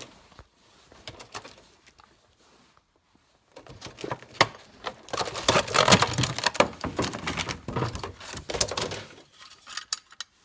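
Rapid clicking and clattering of metal and plastic tailgate latch parts being handled and pulled free, starting a few seconds in and running until near the end.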